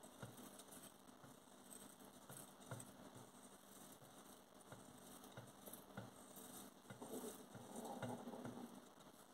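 Faint scattered ticks of roasted coriander seeds and other whole spices dropping into the steel cup of a small electric coffee grinder as they are brushed off a plate by hand, a little louder near the end.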